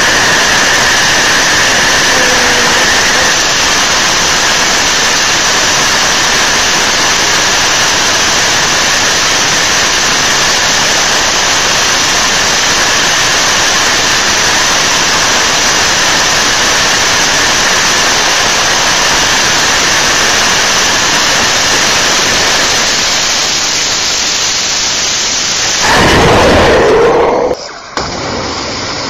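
Rocket engine firing steadily, a loud even rush of noise heard close to the engine. Near the end the sound changes abruptly, louder for a moment, then drops out briefly before a similar engine rush resumes.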